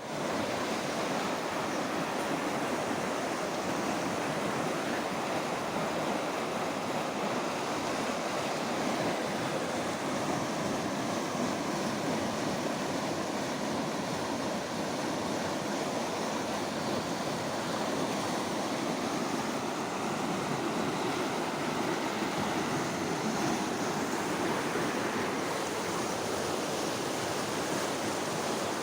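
Water rushing steadily along an irrigation canal, an even, unbroken roar of flow.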